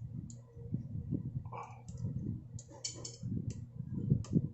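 Irregular small clicks, taps and knocks from hands fitting an SMA connector into a plastic device housing, with the loudest pair of knocks near the end.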